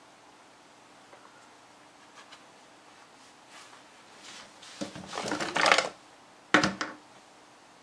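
Cake batter being scraped out of a plastic mixing bowl into cake pans: about a second of rough scraping and rubbing against the bowl, then a sharp knock on the bowl about a second later.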